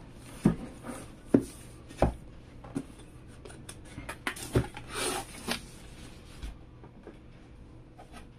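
A cardboard box being handled, with several sharp knocks in the first two seconds, then a knife blade scraping and cutting along the box's seal for about a second and a half, from about four seconds in.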